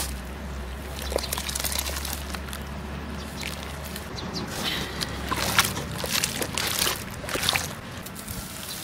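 Hands sloshing and squeezing soaked, crumbling sand-cement in a basin of water: repeated wet squelches and splashes, busiest in the second half.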